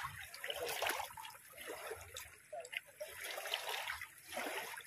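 Shallow seawater splashing and trickling around a fishing net crowded with small fish, coming in short irregular spurts.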